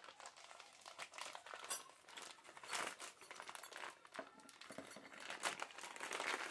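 Small clear plastic bag crinkling and rustling in the hands as it is opened, in irregular short bursts.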